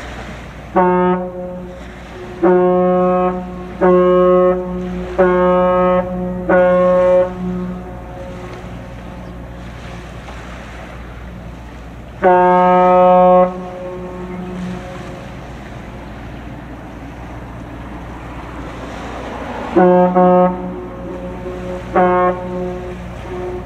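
A ship's horn sounds a series of blasts on one steady deep pitch: a short blast, then four blasts of about a second each, then a longer blast after a pause and two shorter ones near the end. Under it runs a steady low rumble of wind and water.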